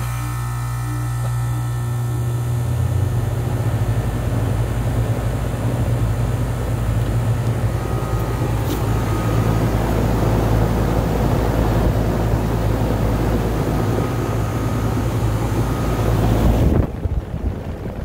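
Goodman GPH1442M41 3.5-ton single-stage package heat pump running in heat mode just after its first startup: a steady low compressor hum under the airy rush of the outdoor fan with its swept-wing blades. Near the end the rushing hiss drops away and the hum carries on.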